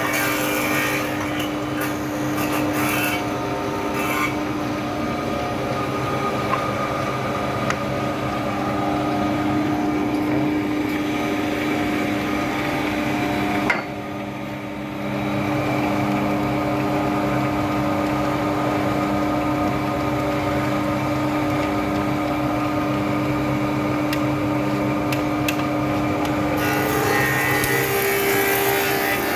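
Goodtek GT 635 double-sided wood planer running and planing boards, with a steady motor hum under the hiss of the cutters. The sound drops briefly about halfway through, and the cutting hiss grows louder near the end.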